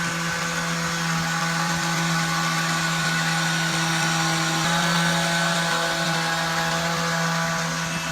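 An electric power tool running steadily at constant speed, a hum with a rough hiss over it, typical of rust removal or sanding on a workshop restoration.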